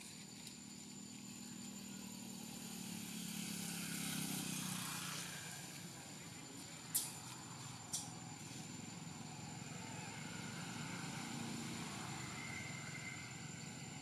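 Outdoor ambience carrying the low rumble of a distant motor vehicle, which swells to a peak about four seconds in and fades, over a faint steady high whine. Two sharp clicks about a second apart near the middle.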